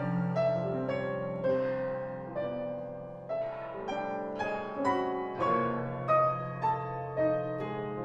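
Solo grand piano playing a slow, sparse passage of contemporary classical music: single notes struck one after another, about one or two a second, over a low bass note held throughout.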